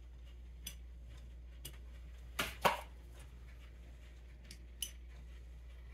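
Faint clicks and taps of small metal parts and screws being handled while a Ford 8N carburetor is put together, with a louder pair of short scraping noises about halfway through.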